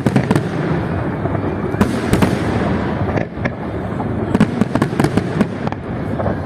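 Fireworks display: a continuous rumble of bursts with many sharp bangs and crackles on top, several coming in quick clusters.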